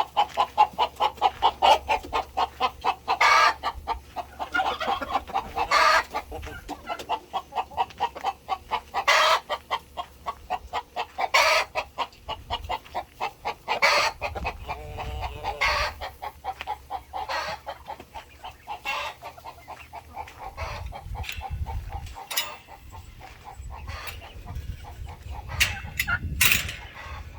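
Chickens clucking in a quick, continuous chatter of about five clucks a second, with louder calls breaking through every two to three seconds. A low rumble comes in over the last third.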